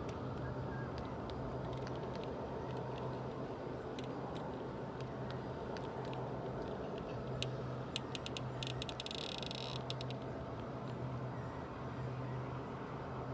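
Wheels of G scale double-stack container cars rolling past close by, a steady rumble on the track with scattered sharp clicks as the wheels cross rail joints, and a short run of rapid clicking about nine seconds in.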